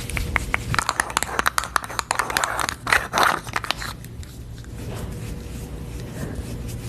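Close-up crackling and scratching, a dense run of crisp clicks for about four seconds, then softer, steady brushing.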